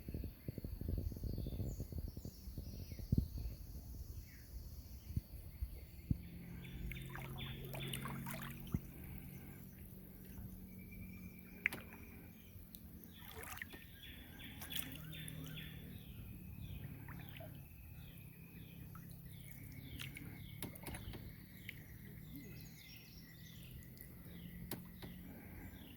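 Several birds chirping and singing in quick repeated notes and a few held whistles, over a steady low background noise, with a few sharp knocks scattered through.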